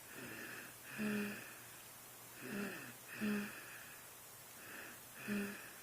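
Snoring in deep sleep: three breaths about two seconds apart, each a soft hissy breath ending in a short buzzing snore.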